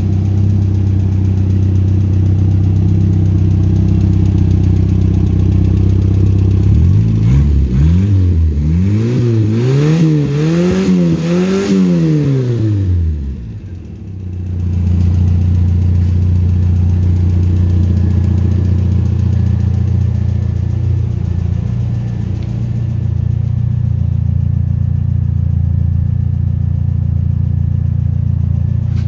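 Subaru EA81 flat-four engine in a VW Beetle idling steadily, then revved in about five quick blips, each rising and falling in pitch, starting about a quarter of the way in; it settles back to a steady idle for the rest.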